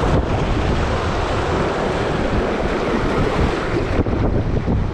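Rushing river whitewater, a dense, steady wash of moving water, with wind buffeting the microphone.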